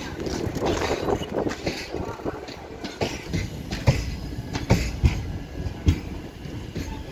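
Passenger coaches of the Begampura Express rolling past with a steady rumble. The wheels give clickety-clack knocks over the rail joints roughly once a second, loudest in the second half.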